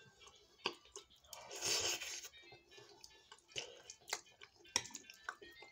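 Chewing a mouthful of mashed potato and fish, with soft wet mouth sounds and scattered small clicks, and a short breathy hiss about one and a half seconds in.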